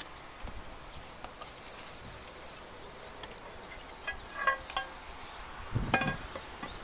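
Ceramic roof tiles clinking and knocking together as they are handled: a few short ringing clinks, then a heavier knock near the end.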